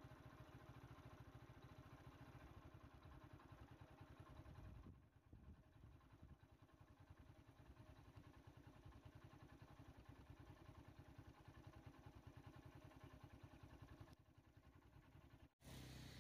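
Faint idling engine with a steady, rapid low putter, dipping briefly twice and cutting out for an instant near the end.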